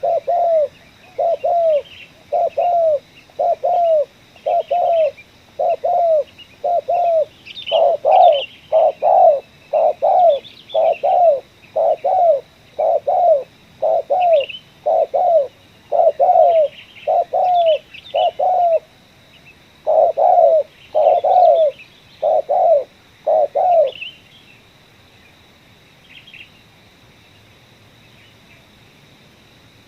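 Spotted dove cooing: a long, even run of short low coos, about one every 0.8 seconds, that stops about 24 seconds in. Small birds chirp higher up, and a faint steady high tone runs underneath.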